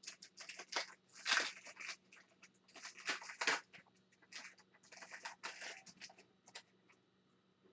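Trading cards being handled and flipped through by hand: papery rustling, sliding and small snaps that come in irregular bursts, loudest about a second in and again around three seconds in.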